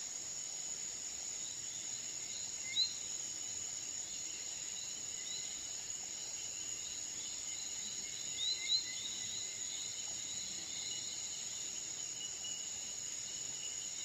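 Steady high-pitched chorus of crickets, with a few short bird chirps about three seconds in and a quick pair near nine seconds.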